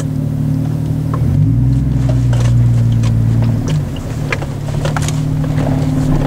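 Car engine running while driving, a steady low hum whose pitch drops about a second and a half in and rises again near four seconds, with light clicks over it.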